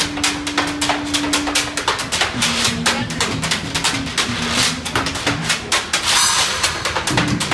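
Live acoustic jazz band of fiddle, banjo, upright bass and drums playing: a steady drum beat under a melody that opens on one long held note and then moves on, with a splash of cymbal about six seconds in.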